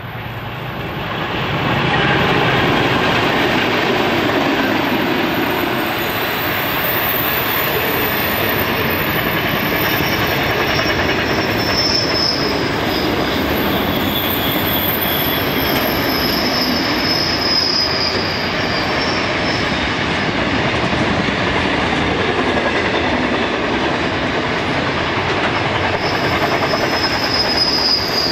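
Pacific National freight train led by NR, DL and NR class diesel-electric locomotives passing close. It grows louder over the first two seconds as the locomotives go by, then a long string of container wagons rolls past with a steady wheel rumble. The wheel flanges squeal high several times on the curve.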